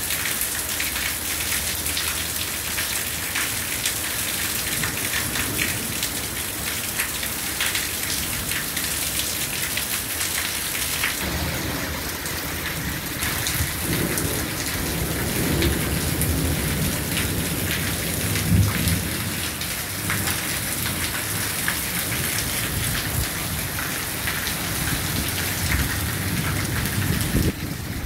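Heavy rain pouring steadily onto the street and surfaces. A long rumble of thunder rolls in about a third of the way through, is loudest around the middle, and then slowly fades under the rain.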